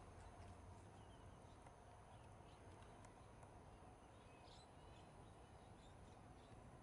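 Faint outdoor ambience: a steady low rumble with a few short, faint high-pitched chirps, the clearest about two-thirds of the way through.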